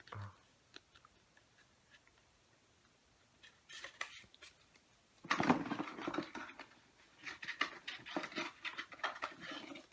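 Paper and plastic rustling and clicking as an album's booklet and inserts are handled: a few faint ticks, a short rustle about four seconds in, then louder, busier rustling and clicking over the last half.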